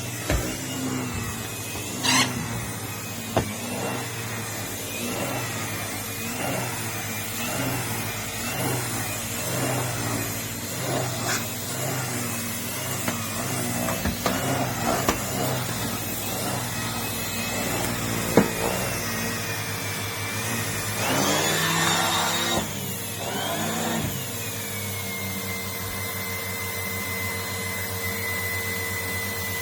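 Numatic Henry vacuum cleaner running steadily, its motor whine wavering in pitch as the nozzle is worked. There are a few sharp knocks, and about three-quarters of the way through a louder rush of air as the pitch swings, after which the whine settles steady and a little lower.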